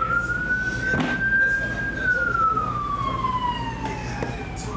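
Emergency-vehicle siren in its slow wail: one long rise in pitch, then a long fall, with the next rise starting near the end. A light knock about a second in.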